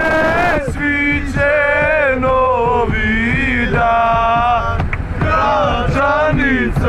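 A group of young men loudly singing a football supporters' chant in unison inside a crowded minibus, over a steady low rumble from the vehicle.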